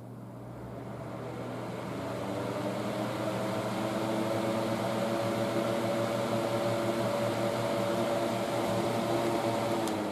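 2010 Polar Wind 10-inch plastic box fan spinning up after being switched on: its motor hum and blade rush build over the first few seconds, then run steady. The sound begins to die away right at the end.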